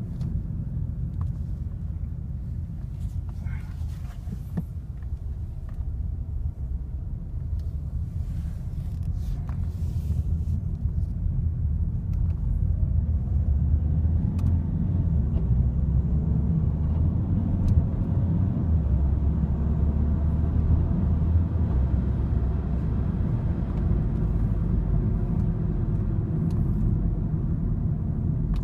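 Ford Mk3 TDCi diesel car driving, its engine and road rumble steady. A few faint clicks come in the first ten seconds, and about twelve seconds in the engine grows louder as it revs up under acceleration.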